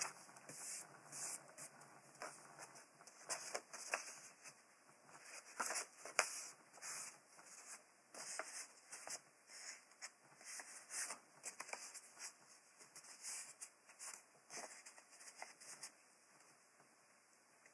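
Scissors snipping through thin white paper in short, irregular cuts, with the paper rustling as it is turned between cuts. The snips thin out and stop near the end.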